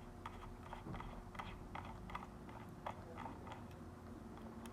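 Faint, irregular small clicks and ticks of a screwdriver turning a small screw out of a laptop's case.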